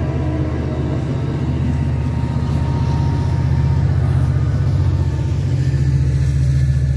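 An Amtrak F59PHI diesel-electric locomotive passes at the tail of a passenger train, with a steady, loud low engine rumble that carries on as it moves away.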